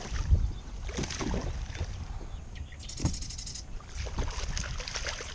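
Wind buffeting the microphone with water lapping and knocking against a kayak hull. About three seconds in there is a short run of rapid, even clicks.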